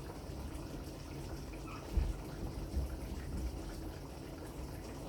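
Steady watery hiss of liquid in the kitchen, with a few low thumps about two and three seconds in.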